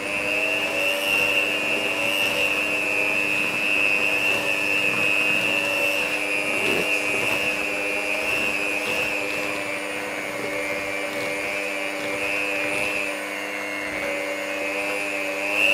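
Electric hand mixer running steadily on low speed, its beaters whisking cake batter of flour, butter, sugar, cocoa powder and eggs in a plastic bowl: a steady motor hum with a high whine over it.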